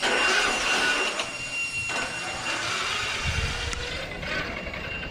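Traxxas XRT radio-controlled monster truck running on the street: whine from its brushless electric motor and drivetrain, with tyre rush. The sound is loudest at first and fades as the truck moves away.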